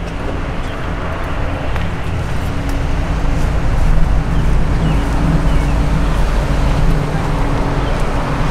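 Classic Ford Mustang's engine running at idle: a steady low rumble that grows louder about three to four seconds in.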